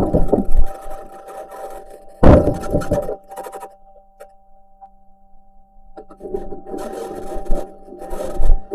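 A Mars rover's metal wheels grinding and scraping over rock, with a sharp clank about two seconds in and a steady electrical hum underneath. The grinding stops for a couple of seconds in the middle, leaving only the hum, then starts again.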